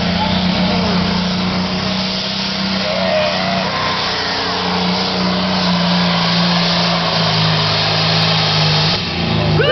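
Pro Stock pulling tractor's turbocharged diesel engine running flat out under load as it drags the sled down the track. The note holds steady and loud, its pitch sagging near the end.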